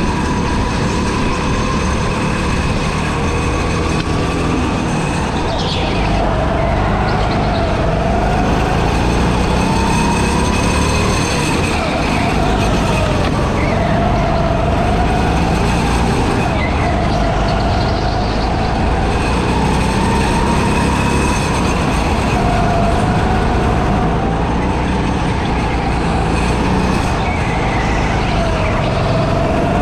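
Go-kart driven at speed through a series of corners, its motor pitch rising and falling again and again as it accelerates out of bends and backs off into them. A steady rumble runs underneath.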